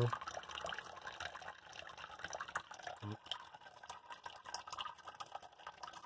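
A thin stream of tap water runs from a kitchen faucet into a stainless-steel sink, pattering and splashing unevenly as a cat drinks from it and puts its head into the stream.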